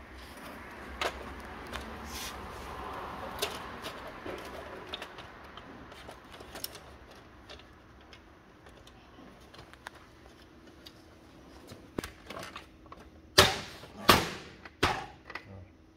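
Plastic clicks and knocks from the top cover of a Brother HL-L2321D laser printer being handled and fitted back onto the chassis during reassembly, with two loud knocks close together near the end as it is pressed into place.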